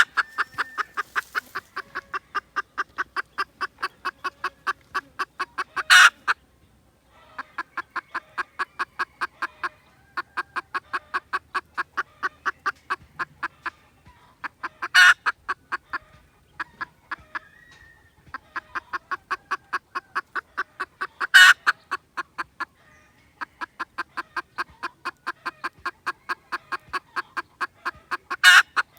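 Junglefowl clucking in rapid, even runs of about six clucks a second, each run lasting several seconds with short breaks between. Four louder, sharper calls stand out among the clucking.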